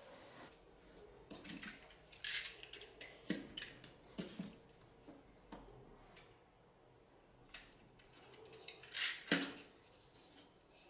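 Quiet handling of thin wooden parts on a workbench: scattered light clicks, taps and rustles, the loudest a pair of taps about nine seconds in.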